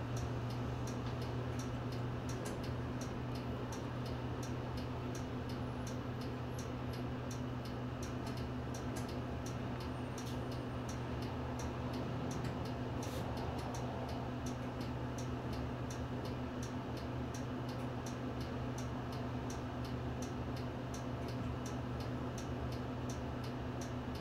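Bus turn-signal relay ticking steadily, a few clicks a second, over the low, steady hum of the Nissan Diesel Space Runner city bus's diesel engine idling while the bus stands still.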